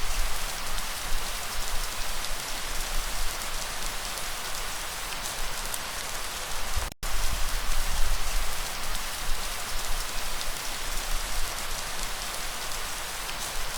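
Steady rainfall, an even hiss of many drops with a low rumble underneath. The sound cuts out for an instant about halfway through, then carries on unchanged.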